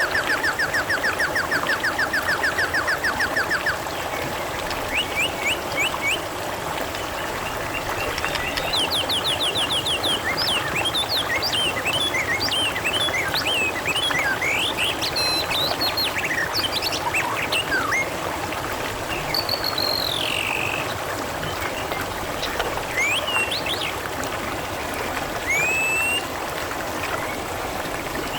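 Water trickling and splashing steadily, with birds chirping and whistling over it. A fast, even trill sounds during the first few seconds, then short calls and rising and falling whistles come scattered throughout.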